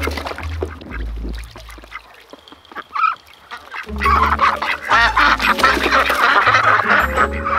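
A flock of domestic ducks quacking, the calls growing loud and dense about four seconds in. Background music plays underneath.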